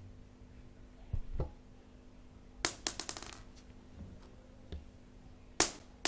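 Small hard beads dropped onto a hard floor: two quick scatters of sharp clicks and bounces that die away, one a little before halfway and one near the end. Two dull low knocks come about a second in.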